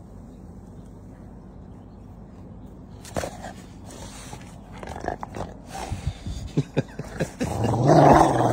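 A dog vocalizing amid knocks and scuffles that start about three seconds in, over a steady low hum. The dog's sound is loudest near the end.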